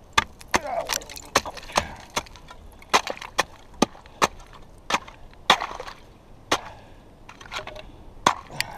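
Steel ice chisel (spud bar) chipping the ice open around an ice-fishing hole: a dozen or more sharp strikes at an uneven pace, with crunching and scraping of broken ice between them.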